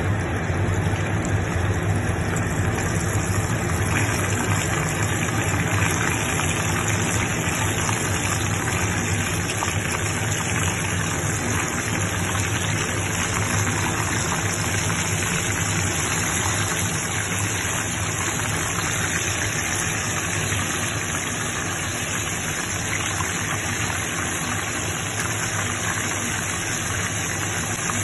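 Breaded pork cutlets deep-frying in hot oil in a wok, a steady sizzle and crackle over a steady low hum.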